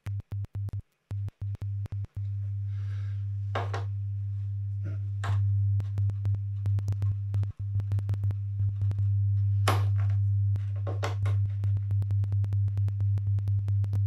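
A steady low test tone coming through the Sonnect Soundwire transformer-coupled USB-C to XLR cable into a mixer. It cuts in and out during the first two seconds and then holds, louder from about five seconds in. Many small clicks and a few short crackles come from hot-patching the XLR connectors with 48-volt phantom power live, with no big phantom-power pop, since the transformer keeps the phantom voltage from being dragged down.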